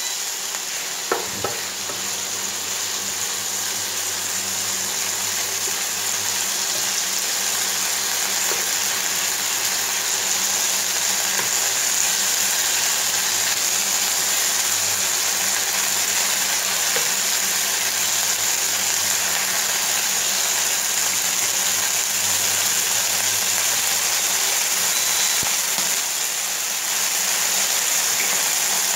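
Diced chicken breast sizzling steadily as it fries in oil in a nonstick frying pan, stirred with a wooden spoon, over a faint low hum. A sharp knock about a second in.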